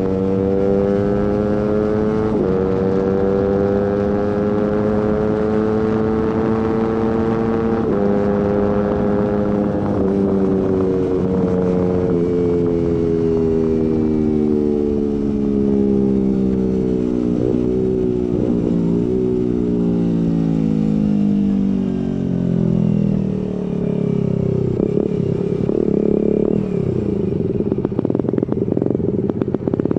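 Suzuki GSX-R150's 150 cc single-cylinder engine through a Prospeed aftermarket exhaust, under way: the pitch climbs and drops sharply at a few upshifts in the first ten seconds. Then it winds steadily down as the bike slows, with a couple of quick blips partway through, and ends running roughly at low revs.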